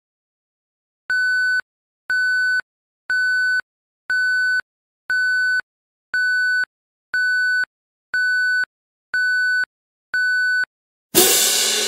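Electronic countdown-timer beeps: ten identical beeps at one pitch, each about half a second long and about one a second. Near the end, the loudest sound comes: a sudden cymbal-like crash that rings and fades as the time runs out.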